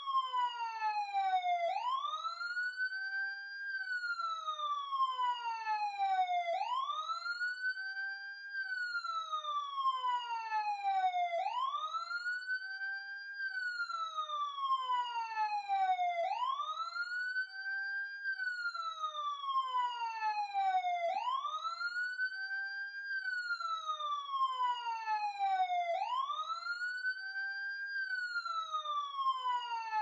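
Emergency vehicle siren heard close up, sounding a wail: the pitch rises quickly, holds briefly at the top, then falls slowly, repeating about every five seconds.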